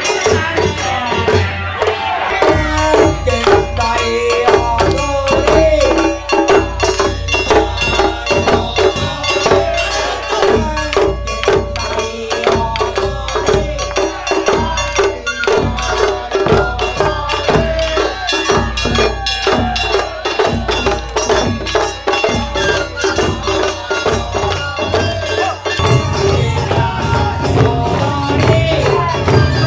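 Live Japanese folk drumming: taiko drums beat a fast, steady rhythm under a wavering melody line. The low drum part changes about four seconds before the end.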